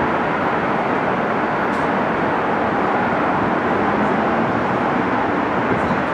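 Steady, loud rumble of an elevated subway line and street traffic, with no single event standing out.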